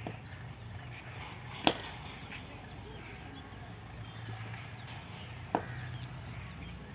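A cricket bat strikes a ball with one sharp crack about one and a half seconds in, and a fainter knock comes near the end. Birds chirp faintly throughout.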